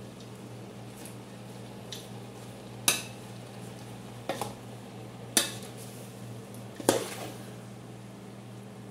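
A metal spoon stirring shredded cabbage and carrots in a large aluminium pot, knocking against the pot's rim with about four sharp clanks a second or more apart, over a steady low hum.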